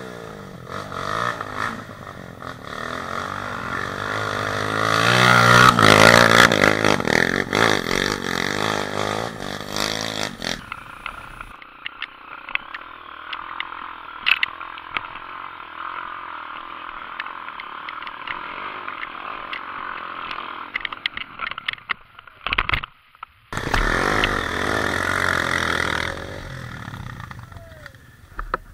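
Dirt bike engine revving hard and unevenly on a steep trail climb, its pitch rising and falling, loudest about six seconds in. It stops abruptly about eleven seconds in, giving way to a steadier engine sound with scattered clattering knocks, then a second loud stretch of revving near the end.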